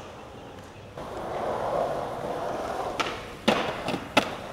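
Skateboard wheels rolling on concrete from about a second in, then four sharp clacks of the board against the ground in the last second and a half.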